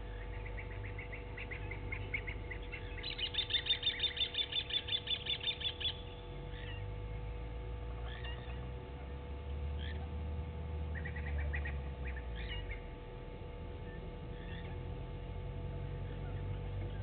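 Blacksmith lapwing calling: a fast run of sharp repeated notes, about four or five a second, growing louder a few seconds in and stopping about six seconds in, then a second, shorter run near the end. A steady low hum lies underneath.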